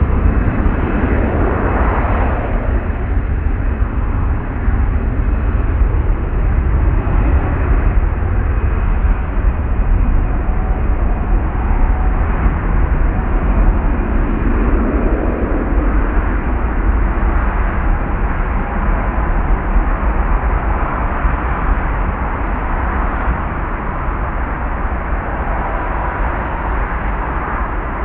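Airbus A320-214's CFM56 jet engines making a loud, steady rumble that eases off slowly near the end.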